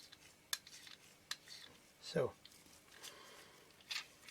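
Small metal lens parts of a Minolta MD W.Rokkor 28mm lens ticking and clicking as a loosened section is unscrewed by hand with a rubber lens tool. Light scattered clicks, with a brief falling sound about two seconds in.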